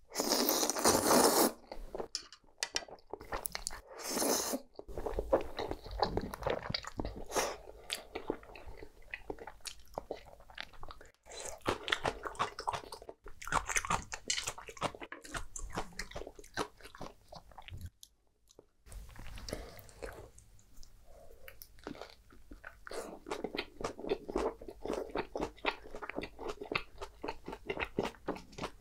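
Close-miked eating of creamy shrimp spaghetti: a loud slurp of noodles at the start and another about four seconds in, then wet chewing with many small smacking clicks.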